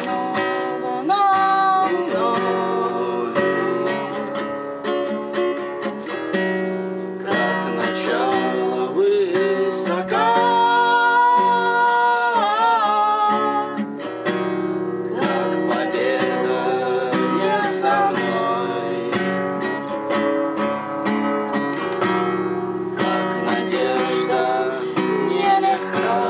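Acoustic guitar strumming and picking the chords of a song's instrumental opening, with a held, wavering melody line over it about ten seconds in.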